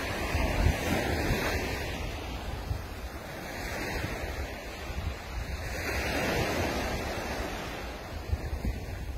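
Small waves breaking and washing up a sandy beach, swelling in twice, with wind buffeting the microphone.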